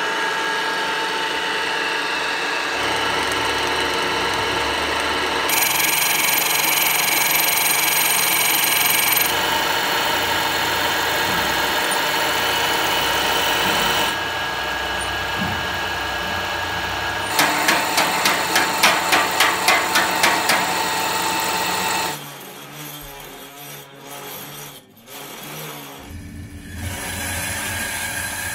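Milling machine running, its end mill cutting brass bar stock, with steady whining tones that change abruptly several times. For a few seconds the cutting pulses regularly about three times a second. Near the end it drops to a quieter, different workshop sound.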